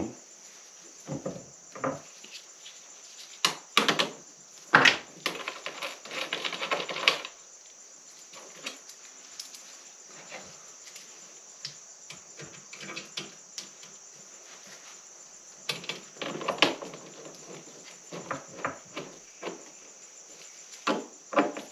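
Irregular metal clicks, taps and knocks of a hand tool and cable lugs at lithium battery terminals, with rustling of the thick battery cables. The loudest knock comes about five seconds in.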